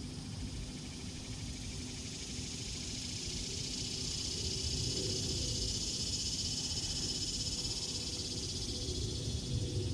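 Insects droning steadily, a high buzz that swells in the middle and eases toward the end, over a low outdoor rumble.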